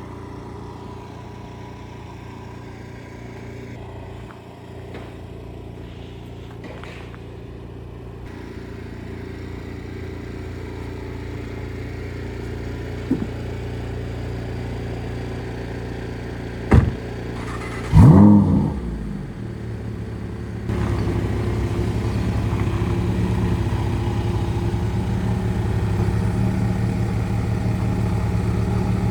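Lamborghini Huracán Evo's V10 engine running at a steady idle. About 17 s in a sharp knock sounds, then a brief loud burst that falls in pitch. From about 21 s the engine runs louder.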